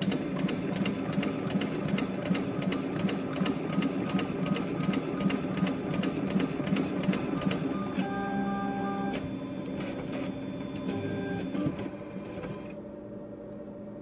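A small motorised machine running, with a rapid, even train of clicks over a steady low hum. The clicking stops after about seven seconds, a steady tone sounds for about a second, and a shorter tone follows about eleven seconds in.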